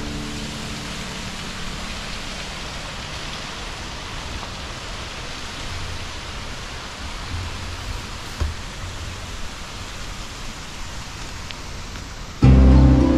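Steady rushing of running water, an even hiss with no tones in it and a few faint low thumps in the middle. Music cuts in suddenly near the end.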